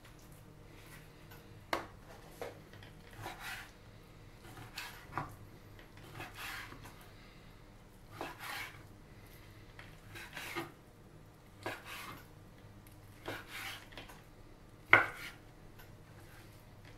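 Large kitchen knife slicing raw chicken breast into small pieces on a wooden cutting board: short cuts, each ending in a tap of the blade on the board, every second or so, with one louder knock near the end.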